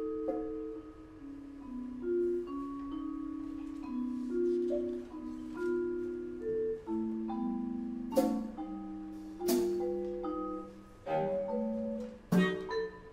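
Vibraphone played with four mallets in a slow line of ringing, overlapping notes. Sharp percussion strikes come in about eight seconds in and cluster more densely near the end.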